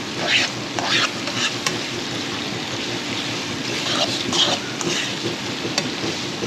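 Sliced franks and bacon frying in a pan with sauce, a steady sizzle, as they are stirred by hand with several short scrapes of the utensil against the pan.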